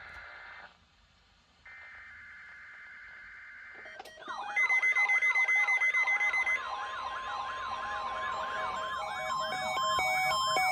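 NOAA Weather Radio SAME alert header data bursts, a harsh buzzy screech that ends about four seconds in. Then several weather alert receivers go off at once: a warbling electronic siren, a fast loud beeping and stepped alarm tones. The steady 1050 Hz weather radio warning alarm tone joins about two and a half seconds later, and the whole gets louder toward the end.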